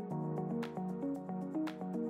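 Background music with a steady beat and short repeating notes.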